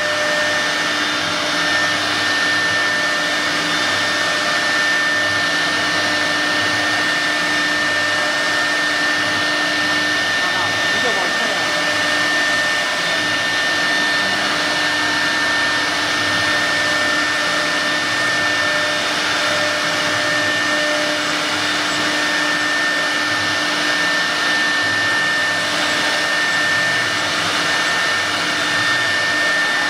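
6 kW HSD spindle of a CNC wood router running at high speed: a loud, steady whine of constant pitch over a rushing noise.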